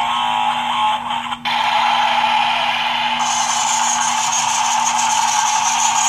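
Battery-powered toy CAT bulldozer playing its electronic sound effects through a small speaker after its top button is pressed, while it drives along on its plastic tracks. The sound changes abruptly about a second and a half in and again at about three seconds.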